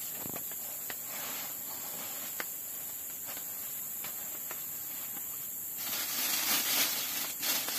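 Steady high-pitched drone of forest insects, with a few faint clicks and a stretch of rustling near the end.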